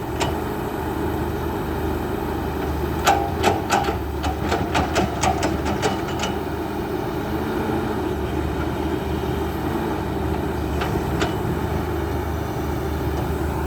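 Hydraulic excavator engine running steadily at work. A quick run of about a dozen sharp, ringing metal clanks comes a few seconds in, and two more come later.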